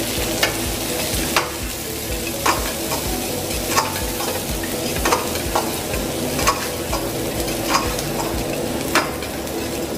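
Chopped onion frying in ghee and spices in a kadai, sizzling steadily, while a steel ladle stirs it and knocks against the pan about once every second or so.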